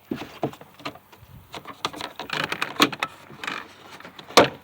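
Hands working the pickup's plastic interior door trim panel: a run of small irregular clicks, knocks and rubbing, with one sharp, loud click near the end.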